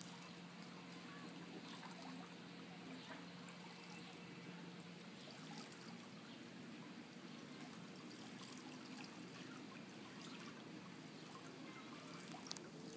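Faint light rain falling on a swimming pool, scattered drop ticks over a steady soft water hiss, with one sharper tick near the end.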